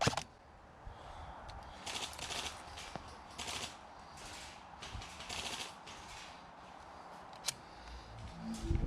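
Airsoft guns firing several short bursts of rapid shots, a few seconds apart, with a single sharp crack about 7.5 seconds in.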